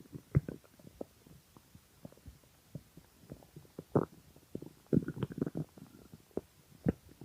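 A hungry stomach gurgling and growling: many short, irregular pops and squelches, with a louder gurgle about four seconds in and a run of gurgles around five seconds.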